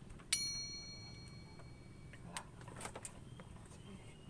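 A single sharp metallic ping: a small metal object struck once, ringing with several high clear tones that fade over about a second and a half, followed by a few faint clicks.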